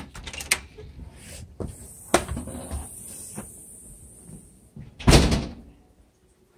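A wooden interior door being opened, with several sharp knocks and bumps and a louder burst about five seconds in.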